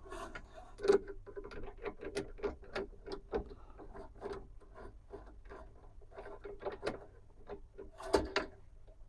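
Light, irregular clicking and tapping of a chuck key on a retractable key holder being handled on a drill press, with a louder knock about a second in and another near the end.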